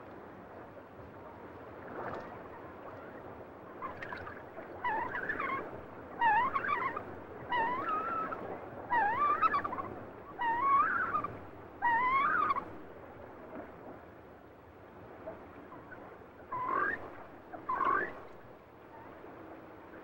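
Giant coot calling: a run of six wavering calls that rise and fall in pitch, roughly one every second and a half, then after a pause two shorter calls near the end.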